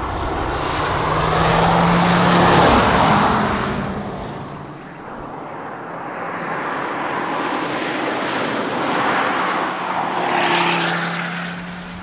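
Ford Focus RS rally car's turbocharged five-cylinder engine at speed with tyre noise as the car passes by. It passes twice: the engine note is loudest and drops in pitch about three seconds in, then swells again toward a second pass near the end.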